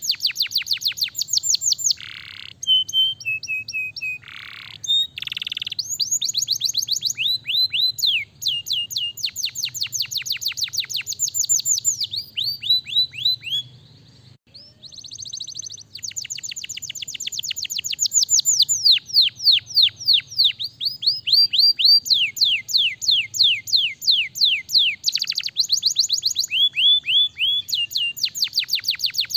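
Domestic canary singing a long, fast song of rapid trills, each a quick run of repeated falling notes, with a brief pause about halfway through.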